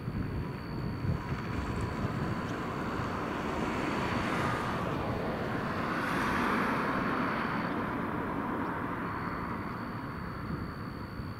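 Distant twin Pratt & Whitney PT6 turboprops of a Beechcraft King Air C90A droning on approach, swelling through the middle and easing off toward the end, over a low rumble. A thin steady high tone runs through it and drops out for about a second near the end.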